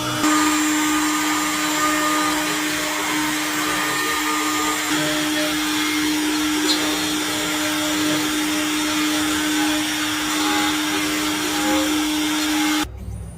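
Onefinity CNC router's spindle running steadily with a constant whine while carving wood; the sound cuts off abruptly near the end.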